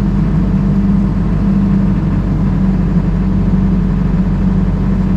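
Excavator's diesel engine idling steadily with an even, unchanging hum.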